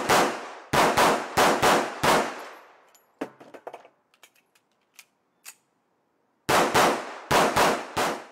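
Semi-automatic pistol firing two quick strings of shots: about six rounds in just over two seconds, a few faint clicks in a pause, then five or six more rounds near the end. Each shot is loud and sharp with a short ring after it.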